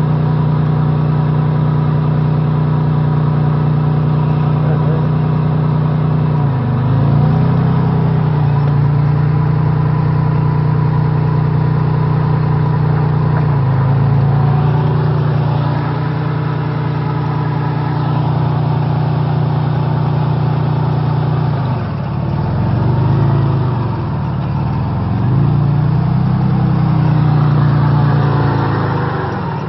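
Off-road 4x4's engine held at high revs as the vehicle works through deep mud, its pitch dropping and climbing back several times as the throttle is eased and reapplied: once about six seconds in, again around thirteen seconds, and a few times in the last eight seconds.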